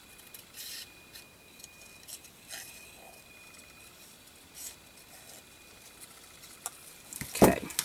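Paper and craft supplies handled by hand on a table: light rustling and scraping with a few soft taps, then a louder knock near the end.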